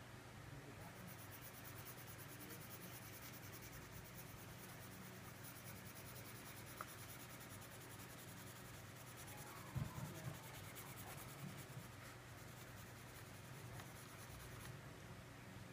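Crayon scribbling on paper in fast back-and-forth strokes, faint, starting about a second in and stopping near the end. A few soft knocks come about two thirds of the way through.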